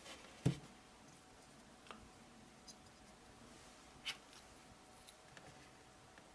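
Quiet handling of a plastic action-camera mount and a bicycle helmet: a dull thump about half a second in, then a few light clicks and taps.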